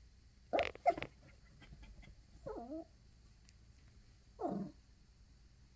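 Yorkshire terrier crying in short whines: two quick cries about half a second in, a wavering, bending whine near the middle and another cry near the end. She is begging for a box of tissues she wants to chew.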